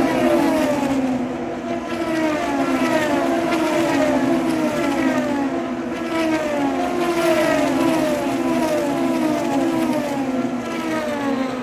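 Super Formula single-seater's two-litre four-cylinder turbo engine passing, its note falling in pitch again and again, about once a second, as the revs rise and drop, fading near the end.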